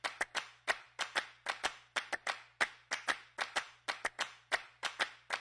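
A steady rhythm of sharp handclaps, often in quick pairs, about four a second.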